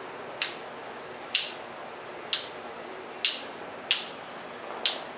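Fingers snapping in a slow, even beat: six sharp snaps about a second apart.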